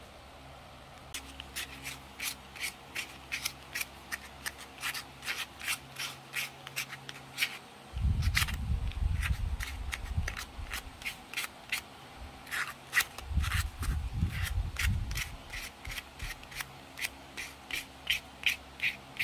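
Short scraping strokes on a small carved pine pendant worked by hand, about two a second, with brief pauses. Twice a low rumble comes up under them, and these are the loudest moments.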